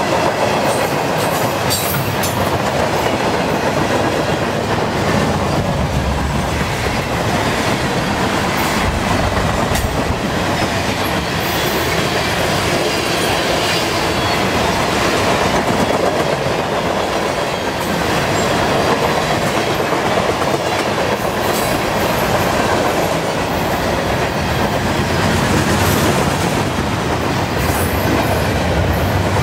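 Freight cars of a long train rolling past at speed: a steady rumble and rush of steel wheels on rail, with scattered clicks from the wheels over the track.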